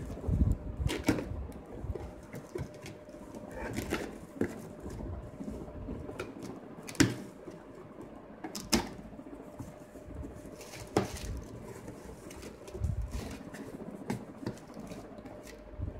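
Cardboard shipping box being handled and opened by hand: scattered scrapes, taps and rustles of the flaps, with sharper knocks now and then, the loudest about seven seconds in.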